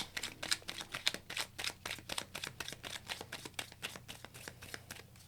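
A deck of tarot cards being shuffled by hand: a quick run of soft card snaps, about five or six a second, growing fainter and stopping near the end.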